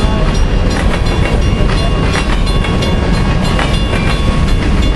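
Covered hopper cars of a freight train rolling past: a loud, steady rumble with irregular wheel clicks and clatter, and a few steady high tones over it.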